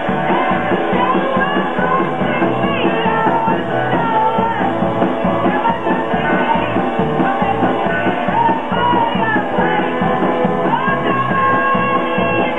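Live rock band playing loudly: a woman singing over guitar, electric bass and a drum kit, with a steady driving beat.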